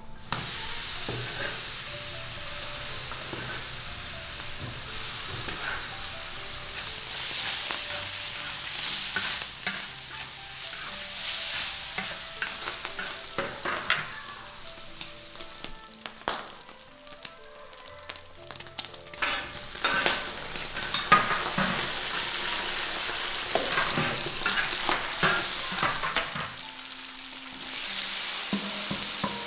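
Food sizzling in hot oil as it is stir-fried in a pan, a spatula scraping and knocking against the pan again and again.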